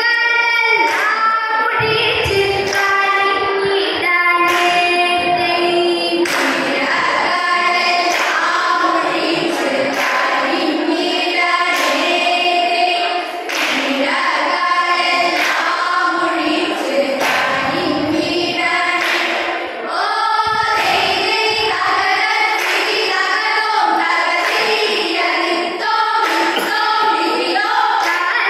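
Vanchippattu, the Kerala boat song: a group of girls singing in chorus, with sharp regular claps keeping a steady beat.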